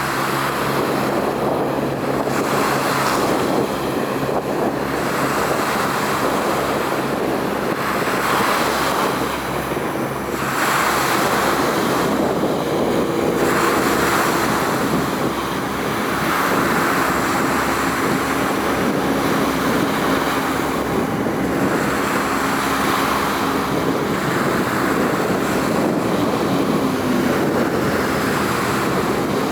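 Wind buffeting the microphone over the sound of water, swelling and easing every few seconds, with a steady low hum underneath.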